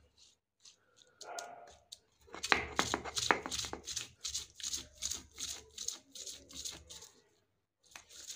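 Stone on stone grinding: a hand-held stone roller rubbed back and forth over a flat grinding slab (shil-pata), crushing spices to paste in a steady rhythm of about three gritty scraping strokes a second.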